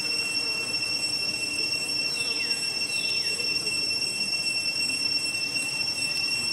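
Steady, high-pitched insect drone, with two short falling calls about two and three seconds in.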